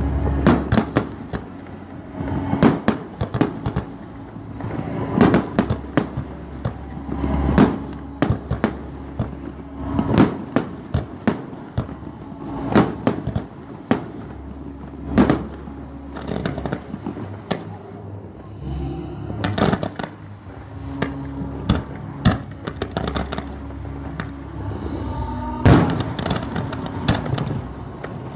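Aerial fireworks display: shells bursting with sharp bangs every couple of seconds, crackling between them, and a quick volley of bangs near the end.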